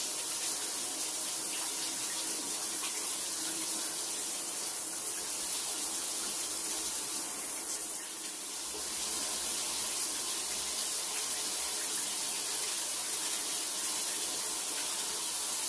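Shower running: a steady rush of falling water, dipping slightly about halfway through.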